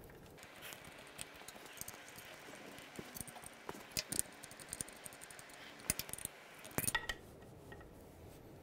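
Faint metallic clicks and taps of the BMW R90/6's clutch bolts being handled and threaded in by hand, with a short cluster of clicks about seven seconds in.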